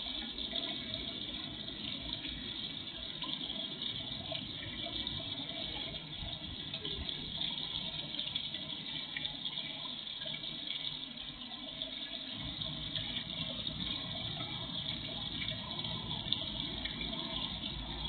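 Steady running, splashing water, as from a garden fish pond's water feature.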